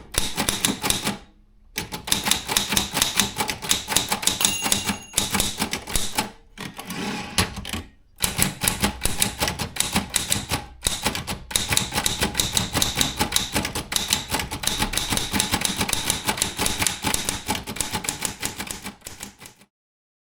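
Brother Chevron/Olympia B12 typewriter being typed on fast: a rapid string of key strikes broken by a few short pauses, stopping abruptly shortly before the end.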